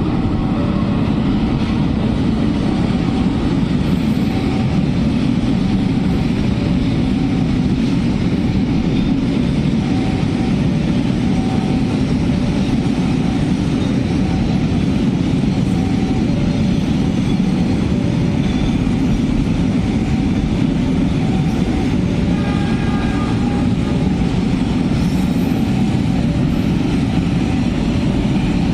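Train passing with a steady, loud rumble that runs unbroken throughout.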